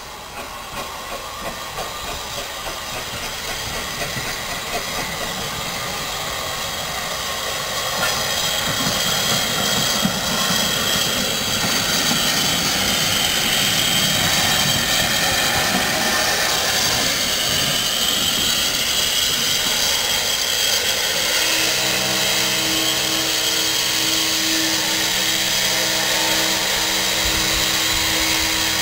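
SECR P class 0-6-0 tank locomotive No.323 'Bluebell' drawing near and passing at shunting speed: soft rhythmic beats at first, growing steadily louder, then a continuous loud hiss of steam. Over the last several seconds a steady low hum joins in.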